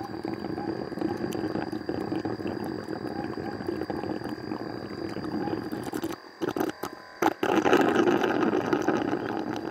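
Suction tube drawing honey and air out of stingless-bee honey pots, a steady gurgling hiss. It breaks off about six seconds in and resumes louder about a second later.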